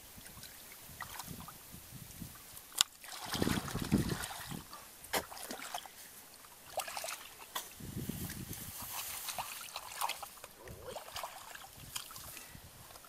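Water sloshing in a plastic basin of live fish as it is handled and carried, mixed with scattered clicks and knocks. A sharp click about three seconds in is the loudest sound.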